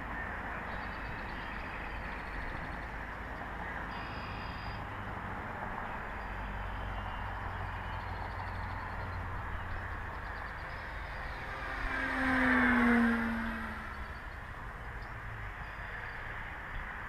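Motor of a radio-controlled Piper J-3 Cub float plane model running steadily in flight. About twelve seconds in it passes close, growing louder with its pitch dropping as it goes by.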